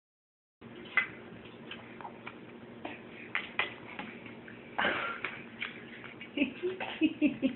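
A cat mouthing a penny: scattered small clicks and taps, with a short scraping rustle about five seconds in and a few short low sounds near the end.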